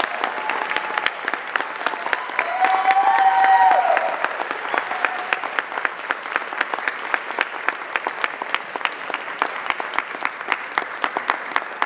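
Audience applauding in an auditorium, thinning to scattered separate claps in the second half. A short called-out cheer rises over the clapping about three seconds in.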